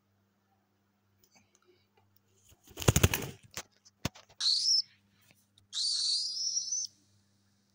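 Young cockatiel flapping its wings in a short, loud flurry as it takes off, then a single knock. Two high-pitched calls follow: a short one, then one lasting about a second.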